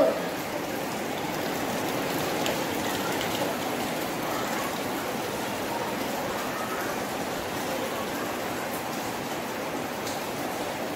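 A steady rushing noise, even and unbroken, that does not change in level.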